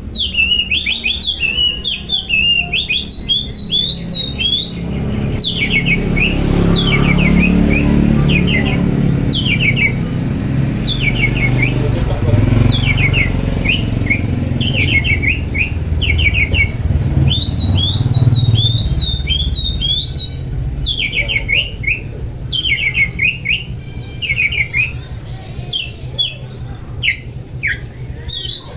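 Oriental magpie-robin (kacer) singing: repeated quick groups of high, falling whistled notes. Underneath runs a low engine rumble that swells through the middle and fades toward the end.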